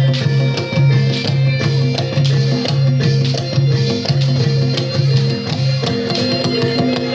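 Reog accompaniment music played live: drums over a repeating low pitched note pattern, with higher pitched instruments on top.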